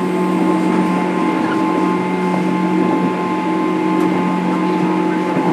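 Cabin sound aboard a JR Kyushu 103 series 1500-subseries motor car: a loud, steady hum with several fixed tones over a constant rumble, holding the same pitch throughout.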